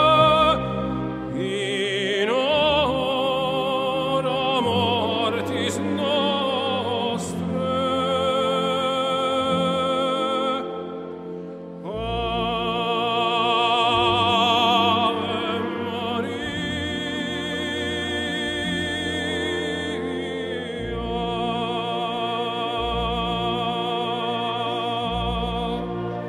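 Operatic singing over an orchestra: a solo voice holding long notes with a strong vibrato, sweeping up into new phrases about two seconds in and again near the middle.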